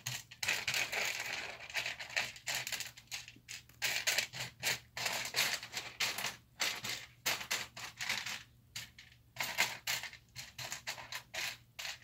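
Hands rummaging through a pile of loose Lego pieces, small plastic parts clattering and scraping together in quick, continuous bursts with a few brief pauses, while searching for a small piece.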